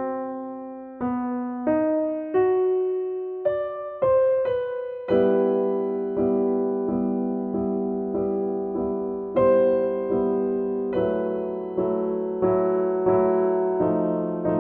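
Background music: a solo piano-like keyboard playing a gentle melody of struck notes, each fading after it sounds, with fuller chords from about five seconds in.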